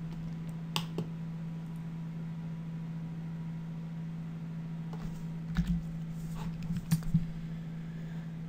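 A steady low hum with a few scattered soft clicks of computer use: a couple about a second in and a small cluster around six to seven seconds in.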